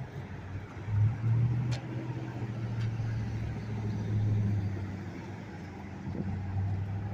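Road traffic on a busy city street: cars passing with a steady low rumble that grows louder about a second in.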